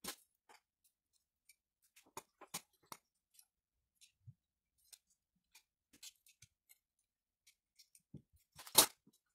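Scattered small clicks and ticks of a 3D printer hotend's stock nozzle being taken apart by hand, as its thermistor and heating element are worked free, with one louder sharp click near the end.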